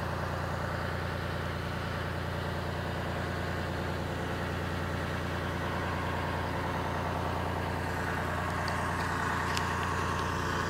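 The crane's engine running steadily at idle: a low, even drone that holds throughout.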